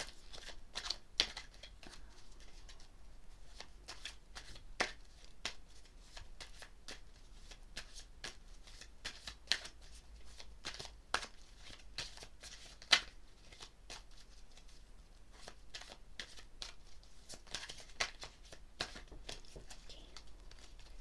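A tarot deck being shuffled by hand: a long run of irregular soft card clicks, with a few sharper snaps among them.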